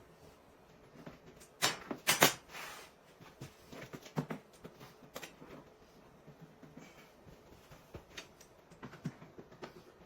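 Scattered light knocks and clicks of objects being handled, with two sharper knocks about two seconds in and fainter taps after.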